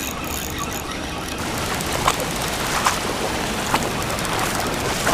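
Steady rush of ocean surf breaking over a rocky shoreline, with a few short sharp clicks.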